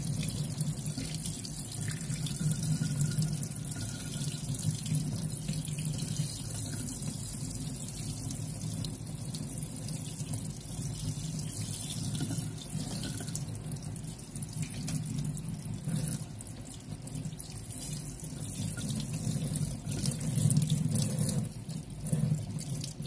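Tap water running into a stainless steel sink while raw chicken pieces are rinsed and rubbed by hand under it. Steady running water with scattered splashes and small knocks.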